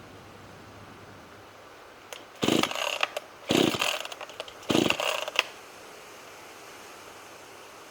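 Small 10-inch two-stroke chainsaw pull-started three times in quick succession: three short whirring cranks of the recoil starter, and the engine does not catch. The owner thinks it could be flooded.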